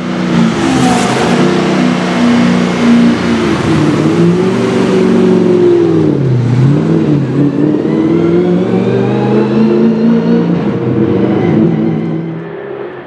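Chevrolet Camaro SS race car's V8 engine running loud, its pitch dipping and rising about six seconds in as the car pulls away. The revs then climb slowly and the sound fades near the end as the car moves off.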